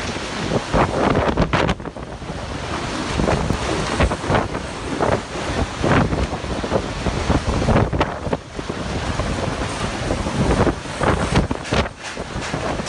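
Violent gusting wind of a waterspout buffeting the microphone, with wind-driven spray lashing across the harbour water.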